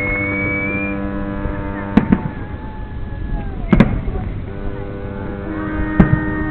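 Fireworks salute: aerial shells bursting with sharp bangs, one pair about two seconds in, another near four seconds and one more about six seconds in. The bangs sound over a bed of steady, held tones, and there is a brief rising whistle at the start.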